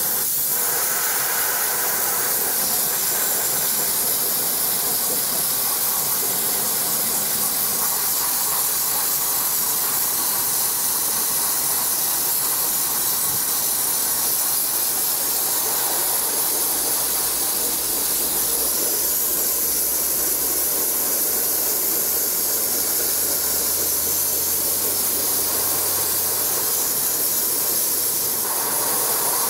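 Dry ice blasting gun firing a steady, unbroken high hiss of compressed air and dry ice pellets against a car's front strut and wheel-well parts.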